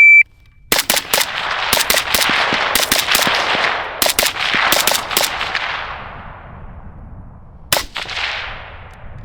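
Shot-timer start beep, then a suppressed Zastava PAP M85 AK in 5.56 firing a quick drill: a run of rapid shots in short strings over about five seconds, each followed by a long echoing tail. One more sharp bang comes near the end.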